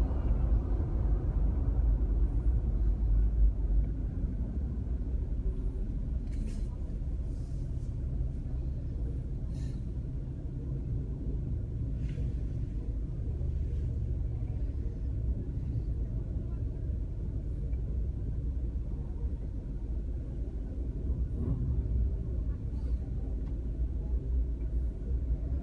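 Steady low rumble of a car's engine and tyres on the road, heard from inside the moving car, with a few faint ticks along the way.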